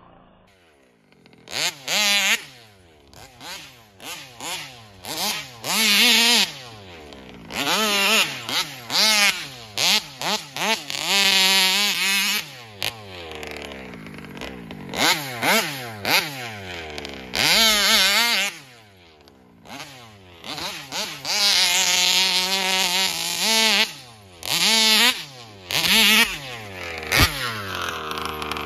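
The two-stroke gas engine of a Taylor RC 71 Supreme large-scale RC buggy, fitted with an expansion-chamber exhaust, revving in many short bursts of throttle as it is driven. The pitch climbs and drops with each burst.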